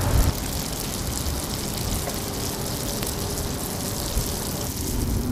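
Steady, even rushing of water, like rain falling.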